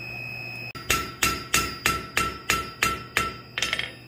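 Hand hammer striking red-hot steel on an anvil: about eight evenly spaced blows, roughly three a second, each with a short metallic ring, then a few lighter quick taps near the end. This is the drawing out of the dragonfly's wings from square bar stock.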